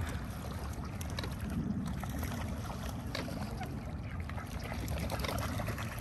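Lake water splashing and trickling as a crowd of waterfowl scramble for bread thrown onto it: many small scattered splashes over a steady low rumble.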